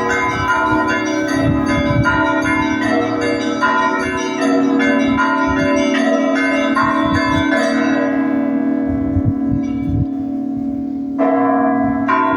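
Russian Orthodox monastery bells ringing: a deep bell hums under a quick repeating pattern of smaller bells. About 8 s in the small bells fall silent, leaving the deeper bells ringing on, and about 11 s in the small bells come back in.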